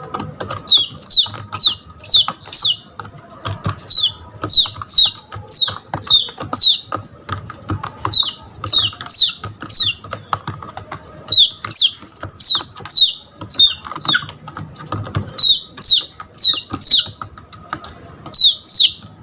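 Red junglefowl chick giving high-pitched distress peeps, each one sliding downward, in quick runs of two to four with short gaps between: a lost chick crying for its mother.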